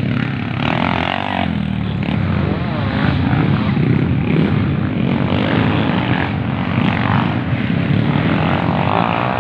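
Racing motorcycle engines running on a dirt track: a loud, steady engine drone with no break.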